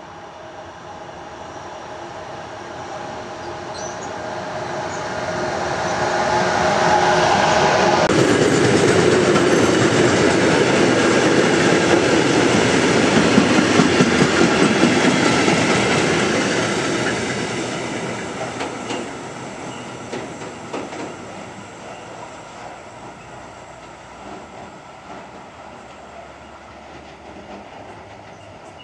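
Electric freight train passing close by: a red DB Cargo electric locomotive approaches with a steady humming tone that falls away as it passes about eight seconds in. Then a string of covered goods wagons rumbles and clacks over the rails, loudest as they go by and fading as the train recedes.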